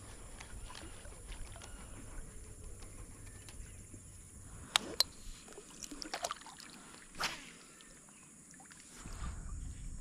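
Handling noise in a plastic fishing kayak: two sharp clicks just before the middle, a few smaller clicks and knocks after them, and a brief swish about seven seconds in, over a low rumble.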